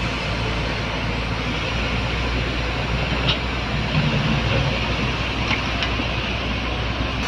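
Excavator's diesel engine running steadily under working load, a constant low hum beneath a broad machine noise, with a couple of brief sharp knocks a few seconds in.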